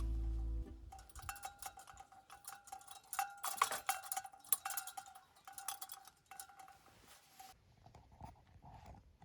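Quick light metallic clinks and taps with a ringing tone, stopping about seven and a half seconds in. Background music cuts off just before them.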